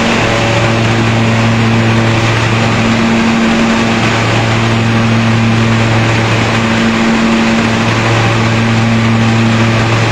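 Hazelnut husking machine (patoz) running steadily under its engine, a loud constant hum with the rush of the threshing drum.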